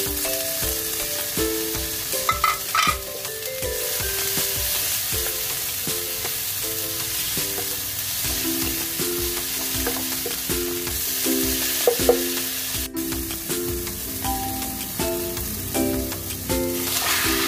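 Food sizzling in a cooking pan while a utensil stirs it, with scattered scrapes and knocks against the pan. Background music plays a simple repeating melody.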